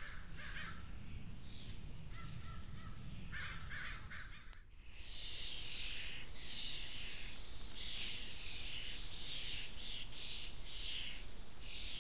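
Birds calling in a rapid series of harsh, noisy calls. The calls are fainter for the first few seconds, then loud and almost continuous from about five seconds in.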